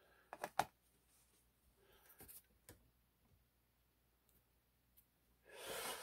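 A couple of short, light clicks about half a second in as the EVVA MCS lock cylinder is handled and set into a plastic parts tray, a few fainter ticks after, then near silence. A soft breathy noise comes in near the end.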